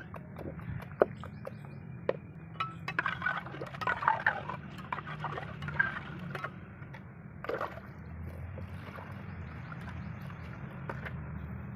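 A trowel stirring and scraping wet cement slurry in a stone basin, with sharp clinks and knocks of tools, and the slurry then poured from a tin mug into a tile mould. A low steady hum runs underneath.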